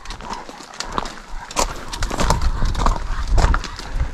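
Hikers' footsteps on rocky ground: sharp taps about every half second in a steady clip-clop rhythm. A low rumble builds under them from about halfway.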